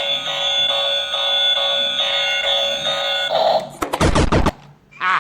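A steady electronic buzzing tone with a regular pulsing rhythm, which stops about three and a half seconds in and gives way to a brief rapid rattle of sharp clicks.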